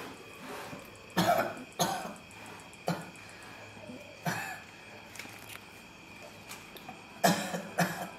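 A man coughing several times in short bursts, with two quick pairs of coughs, one near the start and one near the end.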